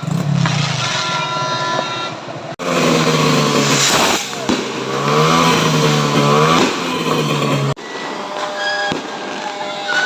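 A motor vehicle engine revving, its pitch rising and falling, between abrupt cuts in the audio.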